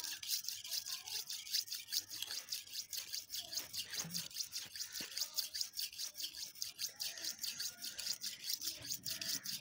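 Steel kitchen knife blade being stroked back and forth over a red sharpening stone, a quick, even rhythm of gritty scraping strokes as the edge is ground sharp.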